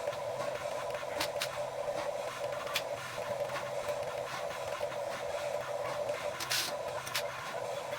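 Huina 1550 RC excavator's small electric motors and gearboxes whirring steadily, with a few sharp clicks.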